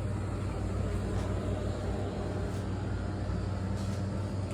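Steady low hum of a shop's background machinery, such as air handling or refrigeration, with a few faint clicks.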